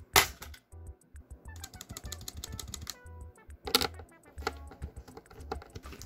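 Typing on a GT68 65% mechanical keyboard with Outemu Red linear switches, still in stock form: quick key clacks with a louder strike just after the start and another past the middle. Background music with a steady beat runs underneath.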